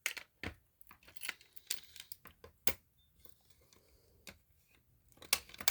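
Scattered light clicks and clinks of a key and a fire alarm pull station being handled, with a few sharper clicks near the middle and end.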